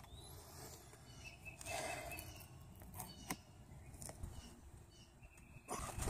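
Quiet handling noise: a few light clicks and taps from a plastic fuel pump assembly and its float arm being turned in the hands. Near the end, louder rubbing as a paper towel wipes the rim of the fuel tank's pump opening.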